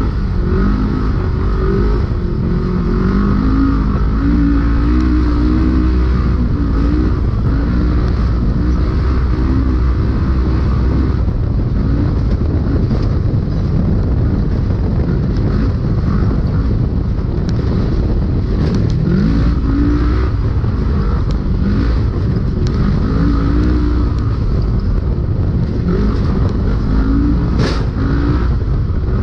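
Polaris RZR UTV engine running hard under race load, heard from inside the cab, its pitch rising and falling with the throttle over a heavy low rumble. A single sharp click sounds near the end.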